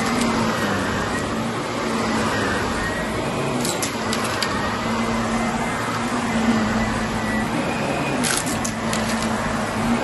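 Shark upright vacuum running steadily while pushed over a carpeted area rug: a continuous motor hum and suction rush with a steady low tone. A few brief clicks come about four seconds in and again near the end.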